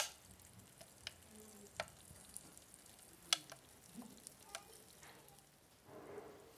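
An egg frying on the hot plate of an electric sandwich maker: a faint sizzle with a handful of sharp pops of spitting fat, the loudest right at the start. A short soft muffled rustle comes near the end.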